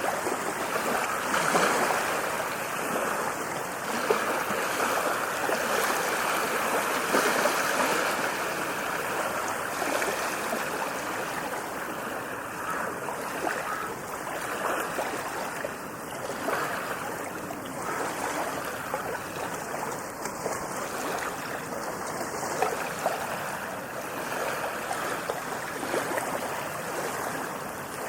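Ocean waves washing onto a beach: a steady rush of surf, swelling a little louder over the first several seconds and then easing.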